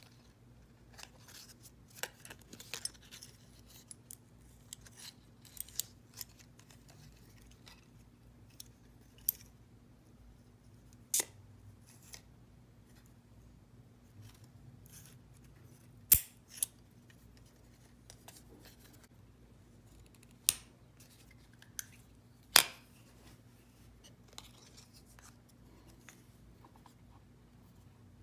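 Scattered sharp metal clicks and snaps from a KNIPEX Cobra XS miniature pliers wrench being handled, its jaws opened, closed and adjusted. A few louder snaps come in the second half.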